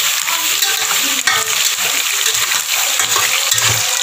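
Chopped eel sizzling as it is stir-fried in a metal pot, with a spatula scraping and knocking against the pot as the pieces are tossed, just after sugar, MSG and seasoning powder have gone in.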